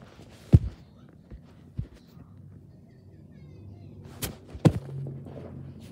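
Four dull thumps and knocks as a small dog roughhouses with a plush toy hamster right against the microphone. The first, just after the start, and the last, near the end, are the loudest.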